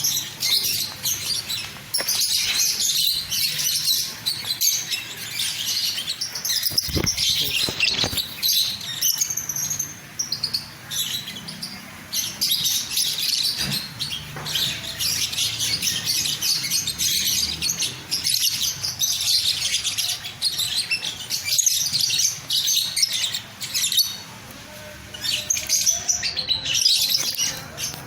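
A flock of lovebirds chirping and chattering constantly, dense high-pitched calls with only brief lulls.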